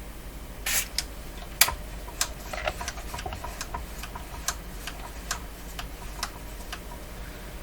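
Irregular light clicks and taps from handling an oscilloscope and small tools on a workbench. Two short, louder hissing bursts come in the first two seconds, and the rest are scattered single clicks over a low hum.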